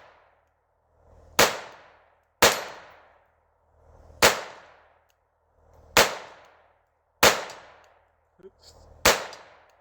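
Glock 44 .22 LR pistol fired six times in slow, uneven succession, each shot a sharp crack with a short echoing tail, one to two seconds apart.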